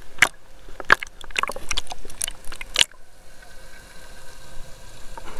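Sea water splashing and slapping against a waterproof action camera at the surface, a handful of sharp splashes. About three seconds in, the sound changes suddenly to a steady, muffled underwater hiss as the camera goes under.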